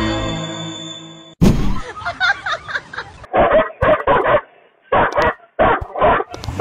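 Two dogs barking at each other from car windows: a run of short, sharp barks in two quick groups in the second half. A ringing chord fades away at the start.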